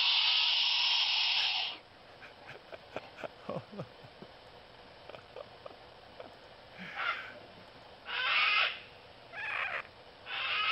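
A man's long, steady hiss into a microphone, imitating a wombat's hiss, cuts off abruptly about two seconds in. Faint clicks follow, then a few short breathy bursts of laughter.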